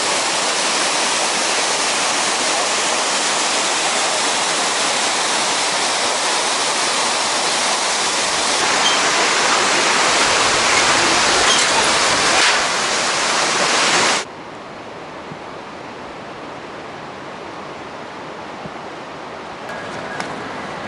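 Rushing water of a mountain stream flowing over rocks, a loud steady rush that cuts off suddenly about two-thirds of the way through, leaving a quieter rush.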